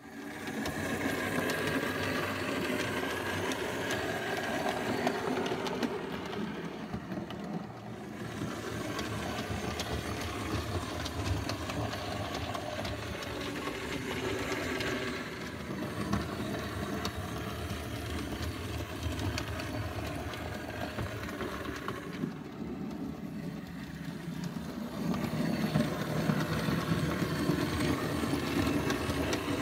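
00 gauge model train running along the track: mechanical running noise from its small electric motor and wheels. It starts suddenly and goes on at a fairly steady level, dipping and swelling a little.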